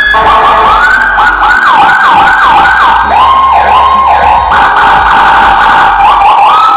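Electronic vehicle siren switching through tones: short rising yelps about twice a second, then a run of falling sweeps, a steady high tone, and rising yelps again near the end.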